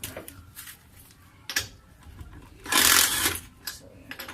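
Socket ratchet clicking in a quick run of under a second as a car's lug nut is worked loose, after a single sharp knock about a second and a half in.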